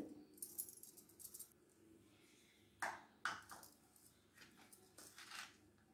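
Faint scraping and a few light knocks of a small plastic bowl as ginger-garlic paste is tipped out of it into a plastic mixing bowl of cauliflower, with two sharper taps about three seconds in.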